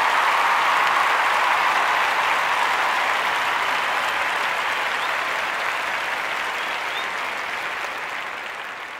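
A group of people applauding, the clapping dying away gradually over the last few seconds.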